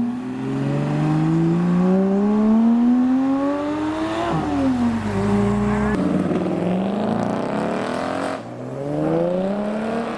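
Porsche 718 Cayman GT4's flat-six accelerating away hard, its pitch climbing for about four seconds before an upshift drops it. Then a Ford Mustang's engine revs up as it accelerates past, with another shift about two seconds before the end.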